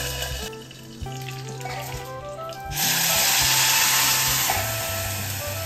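Background music with a steady beat; from about three seconds in, batter sizzles as it is poured into a hot pan.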